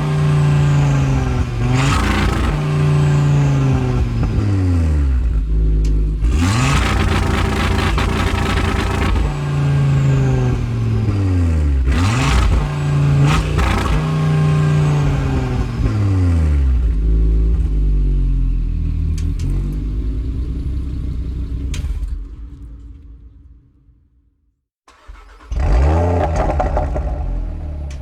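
Car engine revved again and again, each rev falling back, with sharp pops and crackles from the exhaust. The engine sound dies away near the end, then another rev starts.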